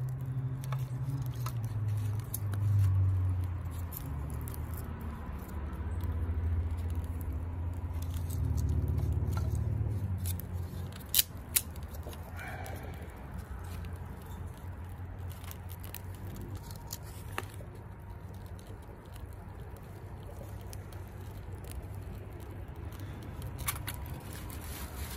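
Small campfire of split kindling burning in a metal fire bowl, with scattered crackles and two sharp pops about eleven seconds in. A low rumble fills roughly the first ten seconds.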